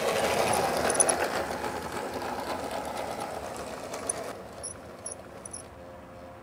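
Battery-powered G-scale model steam locomotive running along garden track, its electric motor and gears, freshly lubricated with lanolin, giving a steady whir. Louder at first, it drops away sharply about four seconds in.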